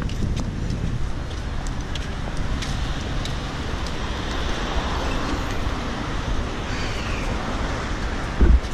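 Steady roadway traffic noise, with a brief low thump near the end.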